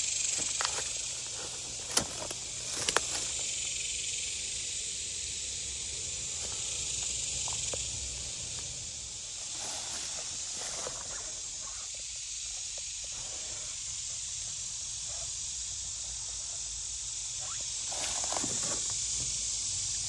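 Steady high hiss of an insect chorus, with scattered clicks and rustles of handling and steps in tall grass, the sharpest clicks about two and three seconds in.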